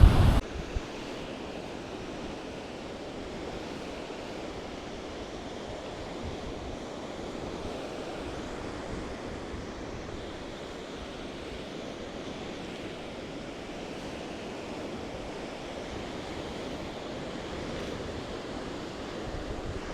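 Surf washing onto a sandy beach: a steady wash of breaking waves with slight swells in level.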